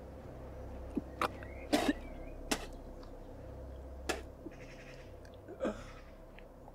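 A man coughing and gasping in pain: a quick run of short coughs about a second in, then a few more strained coughs and breaths.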